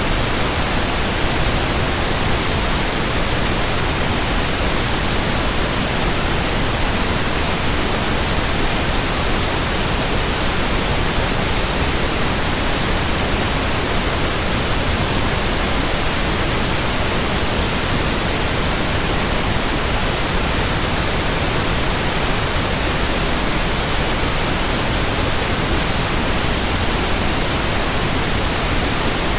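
Steady electronically generated white noise: an even, unbroken hiss spread across all pitches, with no pulses or changes.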